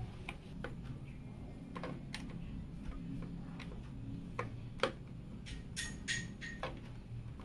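Scattered light clicks and taps as hands handle cables and plastic parts inside a PC case, irregular and a fraction of a second apart, over a faint low hum.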